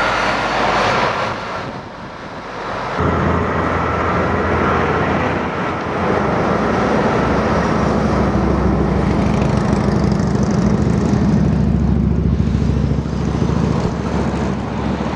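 A motor vehicle running steadily: an engine's low hum with road noise. The sound changes abruptly about three seconds in, then holds steady.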